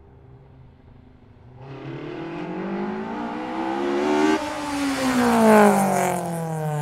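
Car engine, first low and steady, then revving with its pitch climbing from about a second and a half in. Near the middle the pitch drops suddenly, then falls away steadily through the loudest part.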